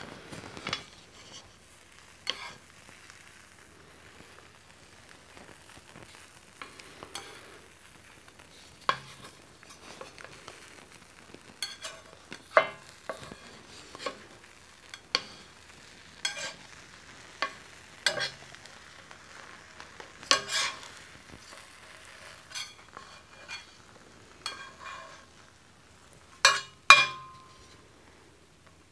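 Slotted metal spatula and wooden crepe stick clicking and scraping against a cast iron crepe pan as a cheese crepe is rolled, in scattered irregular taps with two loud clicks close together near the end. A faint sizzle of the egg cooking runs underneath.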